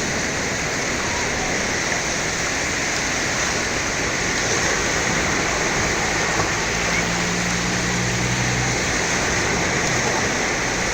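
Steady rushing water, an even, unbroken wash of sound with no distinct surges, and a faint low hum for a couple of seconds past the middle.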